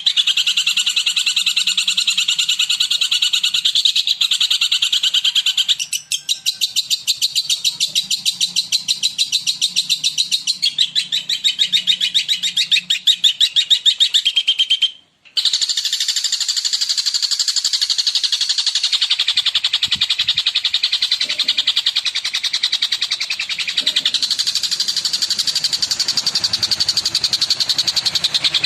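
Long-tailed shrike (cendet) singing a continuous, rapid chattering song of fast-repeated high notes. The song breaks off for a moment about halfway through and then carries on.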